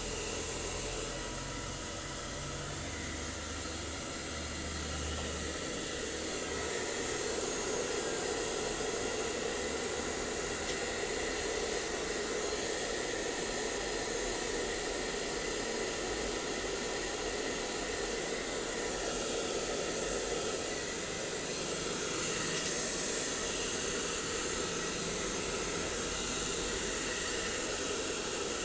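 Handheld hair dryer running steadily as it dries a husky's coat: an unbroken rush of air.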